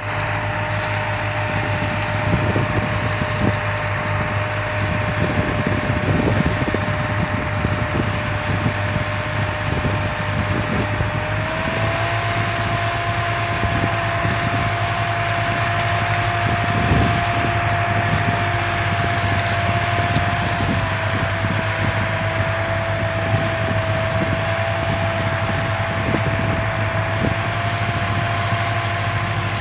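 Two tractor diesel engines, a New Holland 3630 and a Swaraj 960 FE, running steadily under load as they pull a heavily loaded sugarcane trolley out of the field. A steady whine steps up slightly in pitch about a third of the way through. Scattered crackles of dry cane trash breaking under the tyres are heard over it.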